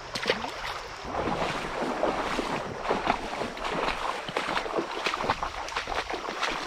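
Shallow river water splashing and sloshing in quick, irregular bursts, as when wading through it.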